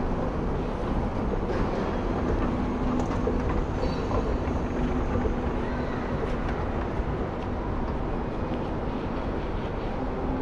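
A steady rumbling background noise with a faint, even hum and a few light clicks.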